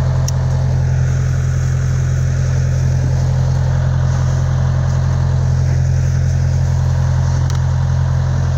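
Engine of a Norwood portable bandsaw mill running steadily with a deep, even hum, the blade not in the wood.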